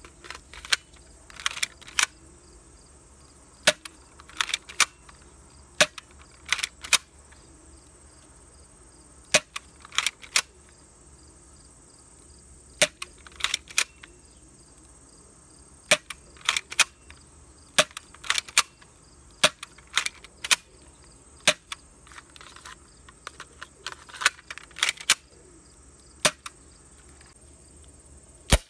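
Air pistol (airsoft/BB) firing repeatedly: sharp snapping shots, mostly in quick groups of two or three with pauses of a second or two between, about thirty-five in all.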